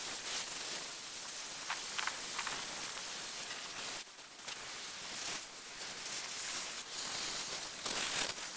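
Sandblaster nozzle blasting coal slag abrasive: a steady hiss of air and grit, breaking off briefly about halfway through and then starting again.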